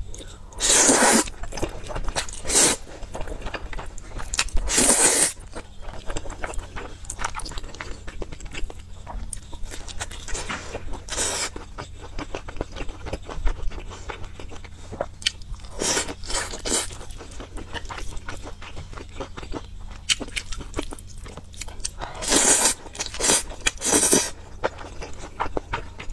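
Close-miked mukbang eating of spicy instant noodles: several loud slurps of noodles, with wet chewing and crunching of the noodles and fried toppings in between.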